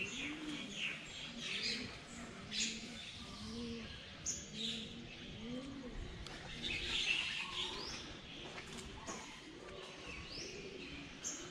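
Birds in trees: doves cooing, a low arching coo repeated over and over, with small birds chirping higher up.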